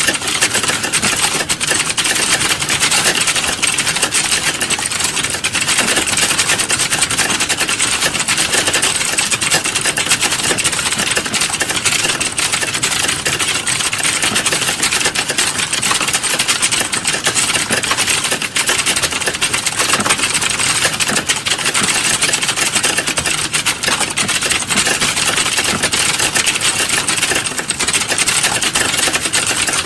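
Fast, continuous typing on a computer keyboard: a steady, unbroken stream of rapid key clicks.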